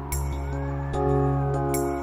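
Background music: steady held chords under a slowly gliding higher line, with a sharp, bright hit twice, about a second and a half apart.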